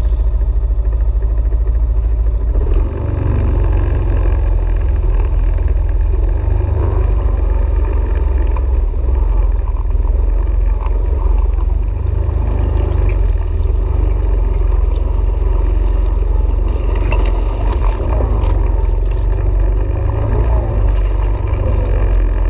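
ATV engine running steadily as the quad is ridden, its note shifting about three seconds in, with a few short knocks and rattles later on.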